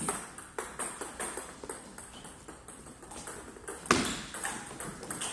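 Table tennis rally: the ball clicking back and forth off bats and the table in a quick, fairly even rhythm, with one louder, heavier hit about four seconds in.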